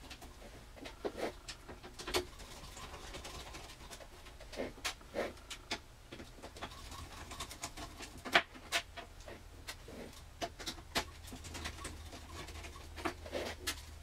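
A screwdriver turning out the screws that hold a desktop computer's power supply in its sheet-metal case: scattered faint clicks and scrapes with short pauses between them.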